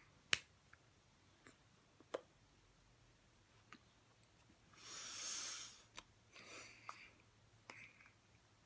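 Faint incidental sounds of a person signing close to the phone: scattered sharp clicks and taps of hands and fingers, the loudest just after the start. A soft breathy hiss lasts about a second in the middle, followed by a shorter, weaker one.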